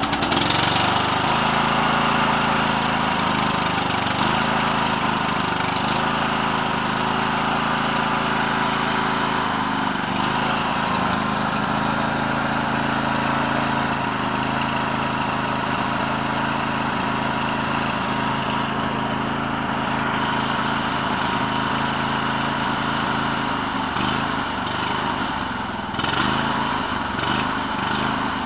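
A riding lawn mower's engine running steadily with its hood off. Its speed wavers briefly a few times, dipping and recovering.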